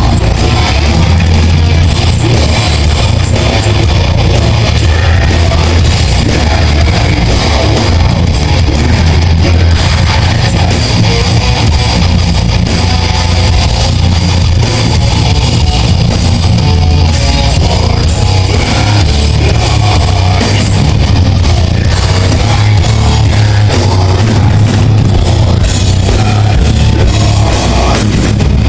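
A heavy metal band playing live and loud: distorted electric guitars, bass and a pounding drum kit with cymbals, the song running on without a break.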